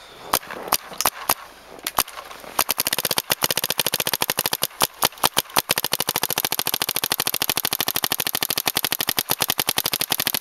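Bob Long Vice electronic paintball marker firing. It fires a few single shots about a third of a second apart, then from about two and a half seconds in a long rapid string of shots in quick, even succession.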